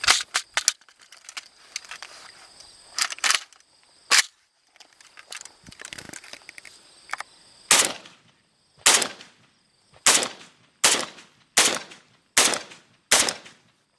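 Gunshots at a shooting range: a few shots close together at first, then a steady string of seven single shots about a second apart.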